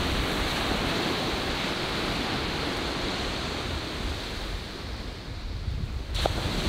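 Ocean surf washing onto a sandy beach, a steady rush with wind buffeting the microphone. The wash eases a little about five seconds in, then a fresh wave surges in near the end.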